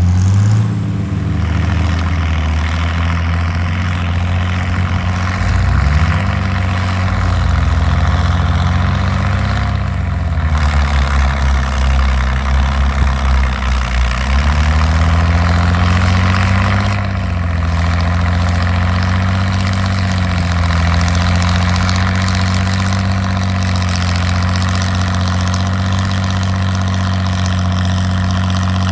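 Farmall 560 tractor engine running steadily under load while pulling a disc plow. Its pitch dips and comes back up a couple of times.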